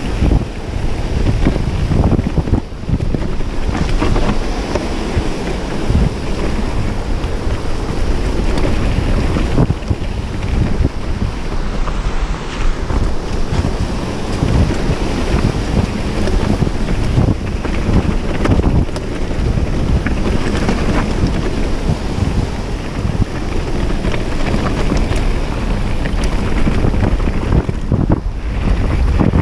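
Heavy wind buffeting on the action-camera microphone as a 29er mountain bike rolls fast down a rocky dirt trail, with constant tyre rumble and frequent knocks and rattles of the bike over stones and roots.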